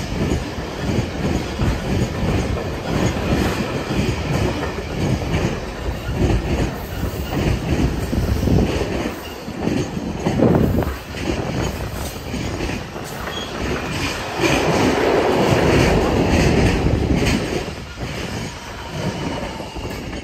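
Engineering train passing close by: flat wagons of concrete sleepers, then yellow track machines, their wheels clattering over the rail joints in a rapid run of knocks. The sound grows louder and fuller for a few seconds about two-thirds of the way through as the track machines go past, then drops away as the end of the train clears.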